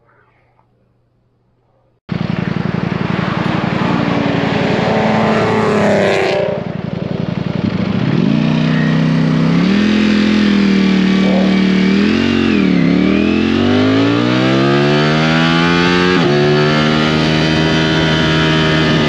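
About two seconds of near silence, then a motorcycle engine comes in suddenly, running at speed with wind on the microphone. Its pitch climbs steadily as it accelerates, drops sharply at a gear change near the end, then holds steady.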